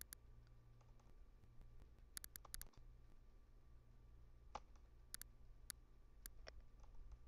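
Faint computer mouse button clicks, about eleven of them, some in quick pairs like double-clicks, over a low steady hum.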